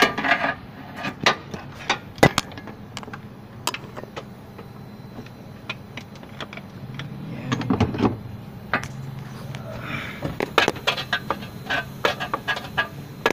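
Scattered metallic clicks and knocks of hand tools and metal parts being handled while unbolting a car's AC compressor in the engine bay, over a low steady hum.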